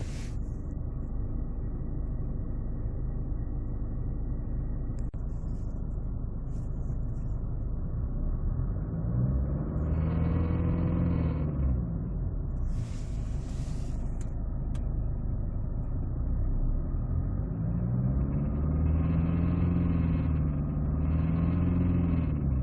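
Mercedes-Benz C200 CDI four-cylinder turbodiesel idling, then revved three times, once about ten seconds in and twice in quick succession near the end, each rev rising and falling in pitch. As the revs climb, an added higher-pitched noise comes in: the awful sound the owner hears above about 2000 rpm, which seems to come from the 722.6 automatic gearbox selector area, with gearbox or torque converter suspected but not diagnosed. A short hiss follows just after the first rev.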